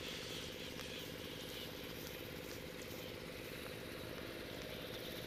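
An engine idling with a steady, even hum.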